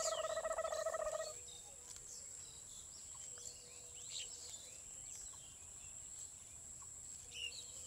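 Open-field ambience of small birds chirping and whistling now and then over a steady high-pitched insect hum, opening with a short buzzy trill that lasts about a second.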